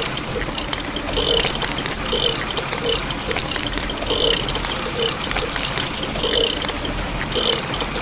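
Wet concrete pouring and dribbling from a toy cement mixer's chute onto a plastic deck, with many small wet clicks and splats. A soft sound repeats about once a second behind it.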